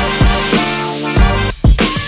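Upbeat background music with a drum beat, about three beats a second; the bass and drums drop out briefly near the middle, then the beat comes back in.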